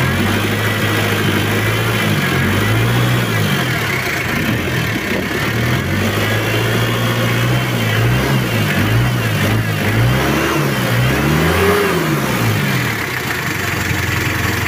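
Mitsubishi 4D56T four-cylinder turbo-diesel idling and revved by hand several times, its pitch rising and falling with each blip, the highest near the end. It is very sluggish to rev and does not sound right, which the mechanic puts down to a poorly set-up engine and injection.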